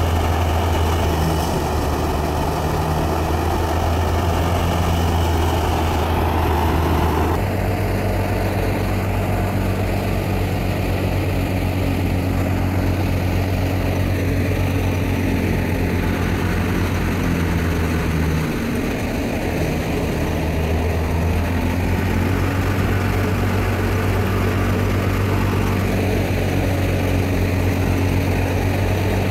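Tractor engine running steadily under load while it powers a wheat thresher, the engine's low hum mixed with the thresher's machinery noise. The tone shifts slightly about seven seconds in.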